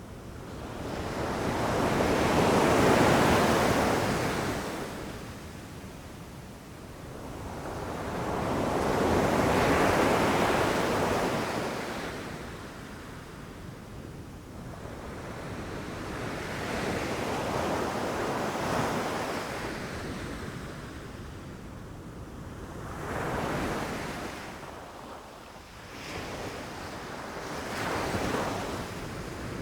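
Ocean waves breaking and rushing up the shore, each surge swelling and fading over several seconds. The first two surges are the loudest; later ones are weaker and shorter.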